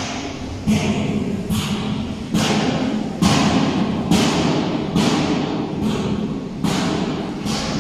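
Heavy thuds repeating evenly, a little more than one a second, over a steady low hum.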